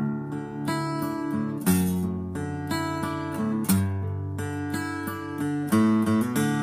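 Acoustic guitar strummed without singing, chords ringing between strokes, with three heavier strums about two seconds apart.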